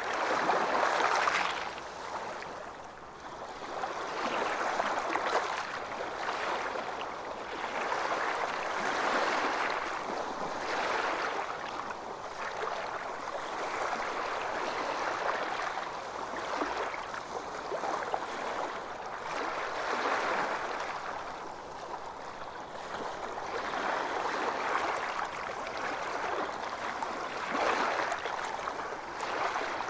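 Calm small waves lapping and sloshing, swelling and easing every couple of seconds.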